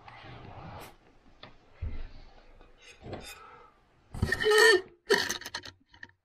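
A man's short non-word vocal sounds, a loud one about four seconds in and another just after, among rustling and a few knocks as he shifts about and handles the camera.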